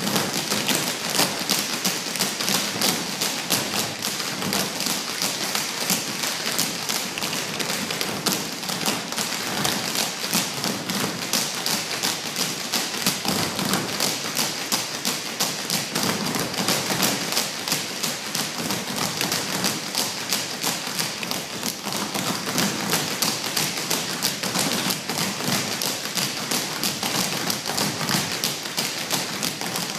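Tap shoes of a group of tap dancers striking a stage floor in fast, continuous rhythmic patterns, many sharp taps a second, with no music.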